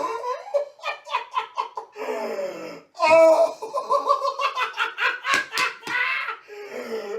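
A man laughing hard and uncontrollably, in rapid bursts of giggling and belly laughter, with a loud, high-pitched peak of laughing about three seconds in.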